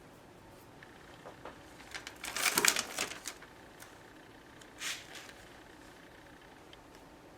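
Hands handling and pressing small leather pieces onto a leather boot vamp on a workbench: a cluster of quick taps and rustles about two to three seconds in, and one short rustle near five seconds.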